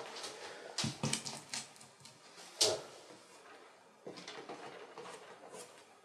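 Light knocks and scrapes of a paintbrush and painting tools being handled, with one sharper brief sound about two and a half seconds in. From about four seconds, faint brushing of oil paint on canvas.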